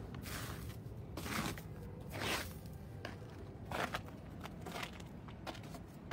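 Footsteps crunching and scuffing through wet, slushy snow on a tiled pavement, coming irregularly as short strokes and a few longer scrapes.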